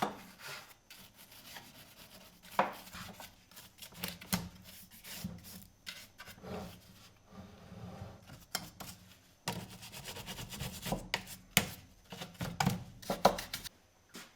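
STIHL MS 180 chainsaw being handled with its engine off: irregular knocks, clicks and rubbing or scraping of its parts.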